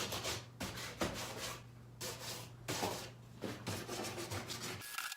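Hand sanding of painted furniture with sandpaper: runs of quick back-and-forth rubbing strokes broken by short pauses, over a steady low hum that stops near the end.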